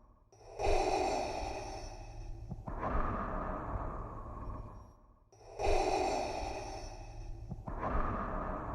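Darth Vader's mechanical respirator breathing, made by breathing through a scuba regulator. It goes in two slow, hissing in-and-out breath cycles of about five seconds each, with a brief pause between them.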